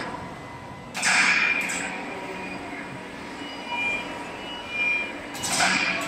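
Car assembly line machinery running: a steady industrial hum with two loud rushing hisses, about a second in and near the end, and a few short high tones in between.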